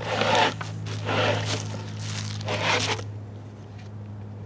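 Clear plastic wrapping crinkling and rustling as a long wrapped part is drawn out of a cardboard mailing tube, in three swells over the first three seconds, over a steady low hum.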